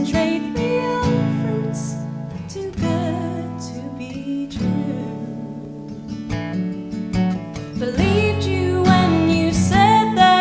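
Acoustic guitar strumming chords in an instrumental break between sung lines.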